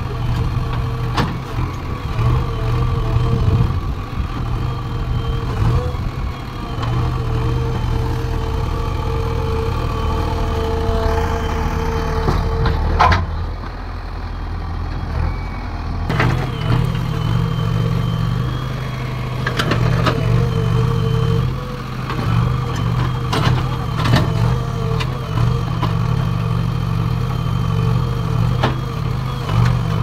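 JCB 3DX backhoe loader's diesel engine running steadily as the machine works, its pitch shifting now and then, with a steady whine over it and a few sharp clanks.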